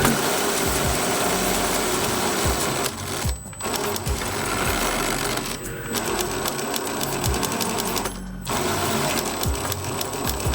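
Axial SCX10 III RC crawler's electric motor and drivetrain running with a steady whirr and a regular low click about every half second, the drivetrain clicking noise being chased down. It cuts out briefly three times.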